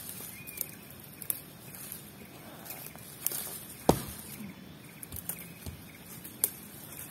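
Dry leaves and twigs rustling and crackling, with scattered sharp clicks and one louder crack about four seconds in.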